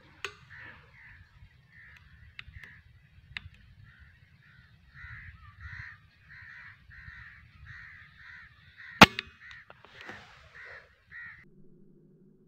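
Crows cawing over and over, about two calls a second. A single sharp crack about nine seconds in is the loudest sound, with a few faint clicks earlier.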